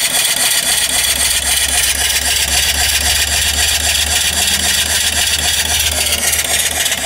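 Small steam engine running steadily with a fast, even beat and a constant steam hiss, working under the load of the alternator it drives to charge a battery. A low hum comes in about half a second in.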